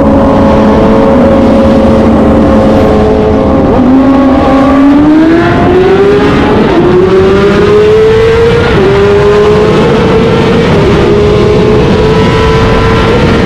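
BMW engine running at high revs and accelerating through the gears. Its pitch holds high, drops sharply about four seconds in, then climbs again, with a short dip at each upshift about every two seconds.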